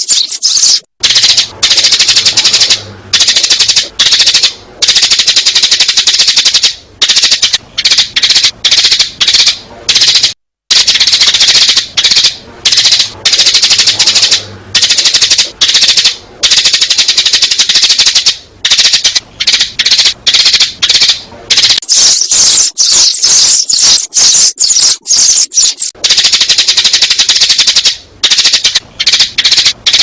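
Sparrows chirping loudly in a rapid, unbroken chatter, a sparrow lure recording made to draw wild sparrows in, with several short breaks where it stops for a moment.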